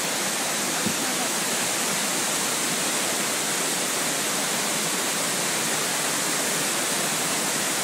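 Fast stream water rushing and splashing over rocks in small cascades, a steady, even rush.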